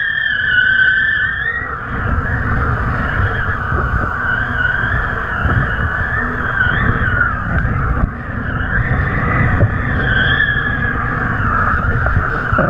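Wind buffeting a camera mounted on a kite in flight, a steady rumbling rush with a high, wavering whistle that drifts in pitch and fades in and out.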